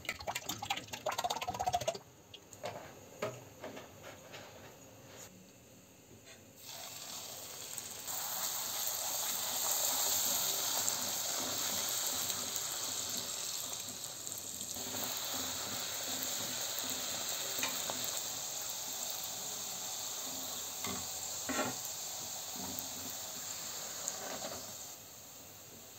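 Puris deep-frying in hot oil: a steady sizzle that sets in about a quarter of the way through and dies down near the end. Before it come a few knocks and handling sounds.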